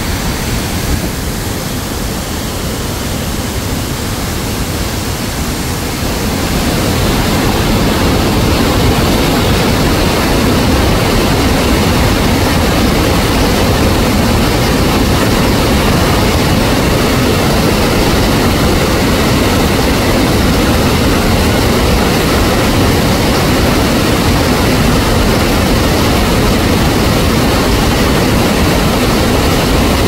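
Waterfall's falling water making a loud, steady rushing noise that grows louder about six seconds in.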